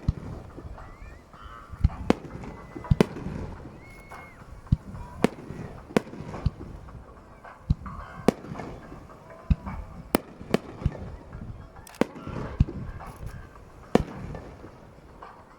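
Aerial fireworks shells bursting in a quick, irregular series of sharp bangs, each with a brief echoing tail: the final volley of the display.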